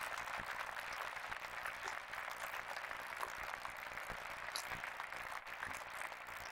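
Audience applauding: many hands clapping together in a steady, even stream.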